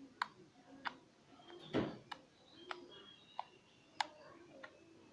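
Slime being squeezed and poked by hand, giving a few sharp, irregular pops and clicks, with one louder, longer squelch about two seconds in.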